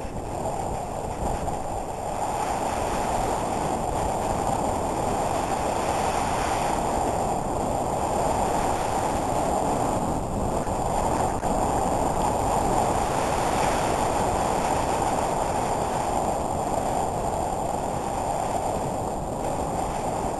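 Dog sled gliding fast over packed snow: a steady rushing hiss from the runners on the snow, mixed with wind on the microphone.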